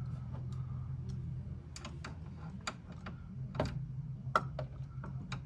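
Irregular sharp clicks and taps of a hand tool working the screws of a plastic air filter housing, over a low steady hum.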